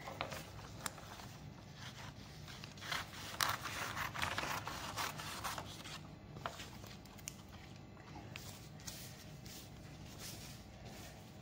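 Close handling noises: rubbing and scraping with a few sharp clicks, busiest in the middle stretch.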